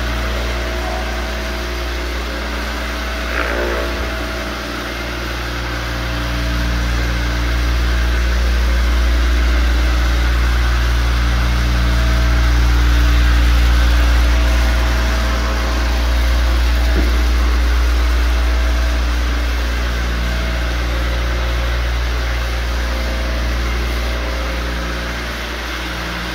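Square-scrub orbital floor machine running steadily on hardwood: the electric motor hums while the pad screens the old finish before the floor is recoated.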